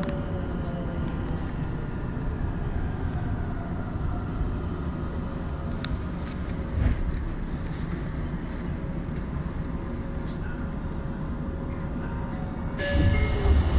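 Tokyo Metro 02 series subway train running between stations, heard from inside the car: a steady rumble of wheels and running gear with a faint steady motor tone. Just at the start a tone glides down in pitch. About 13 seconds in, the noise turns suddenly louder and harsher, with several high steady tones.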